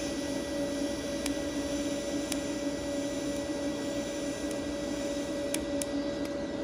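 YesWelder Firstess MP200 lift-TIG arc burning on 1/8 inch steel plate: a steady hiss over a steady hum, with a few sharp ticks.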